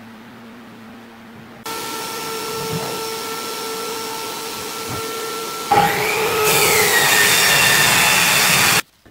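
A power tool running with a steady whine, starting suddenly about two seconds in, then growing louder and harsher about six seconds in with a pitch that rises and falls, and cutting off abruptly just before the end. A faint steady hum comes before it.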